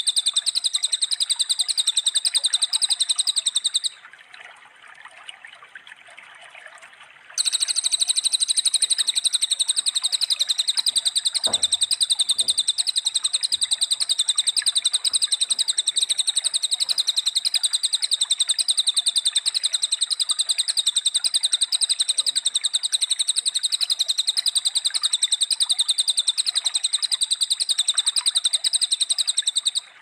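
A songbird singing a fast, unbroken run of identical high notes. It stops about four seconds in and starts again about three seconds later, over a steady rushing background like running water. A faint low thump comes near the middle.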